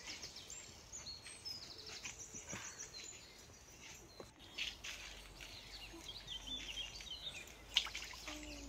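Small birds chirping and trilling repeatedly over a faint background hiss, with a few soft knocks and one sharp knock near the end.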